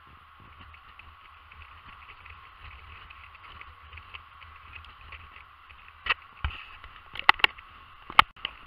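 Camera handling noise: a steady muffled hiss with a low rumble, then five or six sharp knocks close together near the end as the camera is bumped and swung about.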